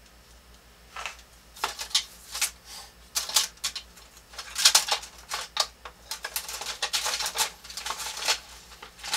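Rummaging among drafting tools and paper: an irregular run of short rustles and light plastic clacks, starting about a second in.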